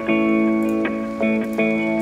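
Background music: plucked-string chords, guitar-like, struck anew about every half second and ringing on between strikes.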